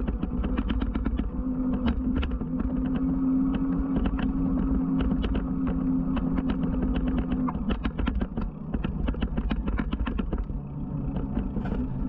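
Riding noise of an electric bike picked up by a bike-mounted action camera: a low rumble of wind and tyres, rapid rattling clicks throughout, and a steady hum that stops about seven and a half seconds in.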